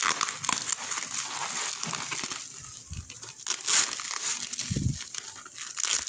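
Black plastic parcel wrapping and clear packing tape crinkling and rustling as hands pick at the tape and handle the package, in irregular crackles. Two low dull knocks come about three seconds in and near five seconds.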